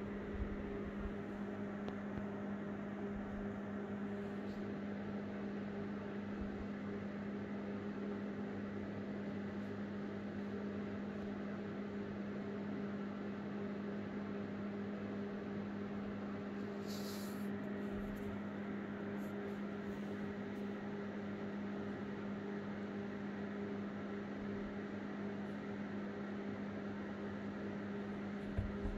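A steady low hum with a faint hiss, with a brief high rustle about halfway through and a couple of soft thumps near the end.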